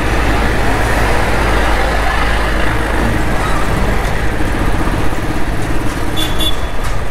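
Royal Enfield motorcycle riding along a road, its engine running under a steady rush of wind on the microphone.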